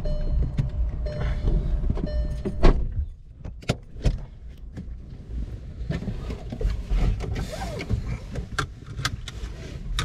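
Car cabin noise while driving: a steady low road rumble with scattered small clicks and knocks, the loudest knock about two and a half seconds in.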